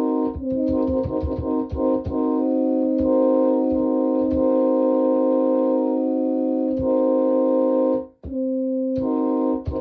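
Simulated Nathan Airchime K5HL five-chime train horn, quilled, sounding its chord in short and held blasts that follow a pop-song melody. The horn cuts off briefly about eight seconds in, then sounds again.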